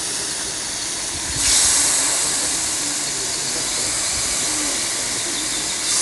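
Meat frying in a cauldron in its own fat and juices: a steady sizzle that gets louder about a second and a half in.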